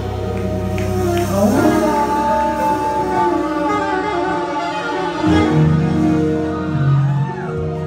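Live band playing a slow ballad, led by keyboard with string-like sustained chords, holding long notes with a few sliding melody notes.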